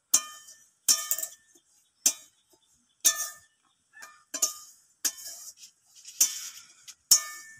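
Metal spatula scraping and knocking against a steel kadai as semolina is stirred while it dry-roasts. There are about eight strokes, roughly one a second, each with a short metallic ring.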